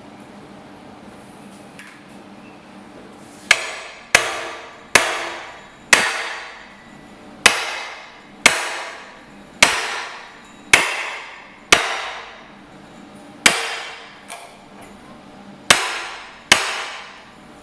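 A hammer striking steel about a dozen times at an uneven pace of roughly one blow a second. Each blow rings on metallically before the next. The blows begin a few seconds in.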